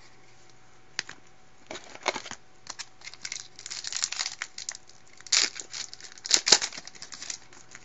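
Foil wrapper of a 2012 Bowman Platinum baseball card pack being torn open and crinkled by hand: scattered crackles and rustles, with the loudest bursts about five and a half and six and a half seconds in.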